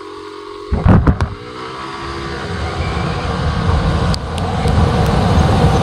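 Yamaha Aerox 155 scooter with a Speedtuner V2 CVT pulley set, its single-cylinder engine running steadily at first. A few sharp knocks come about a second in. It then pulls away hard on a top-speed run, engine and wind noise building steadily as it gathers speed.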